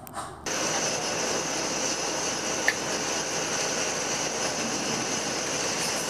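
Cabin noise inside a Cessna 208 Caravan: its Pratt & Whitney PT6A turboprop engine running with a steady loud drone and a high whine, cutting in suddenly about half a second in. A single sharp click comes about two and a half seconds in.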